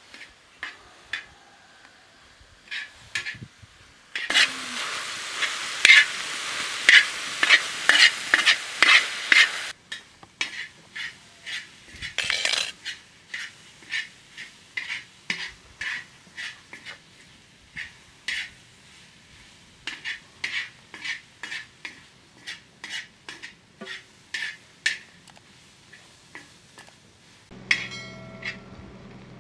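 A metal spoon stirring tomato sauce in a small ceramic bowl and tapping against its rim in light clinks, about one or two a second. From about four seconds in, a stretch of some six seconds is louder, with steady scraping and quick clinks.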